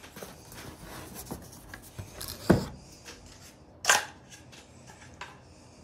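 A cardboard parcel being handled and shifted on a wooden table: scattered light taps and scrapes, with two louder knocks about two and a half and four seconds in.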